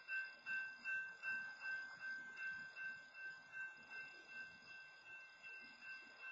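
Railroad grade-crossing warning bell ringing steadily, about two to three strikes a second, while the crossing arms are down for a stopped freight train.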